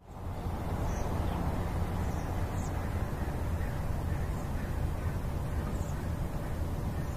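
A steady low rumble of ambient noise with a few faint, brief high-pitched chirps scattered through it.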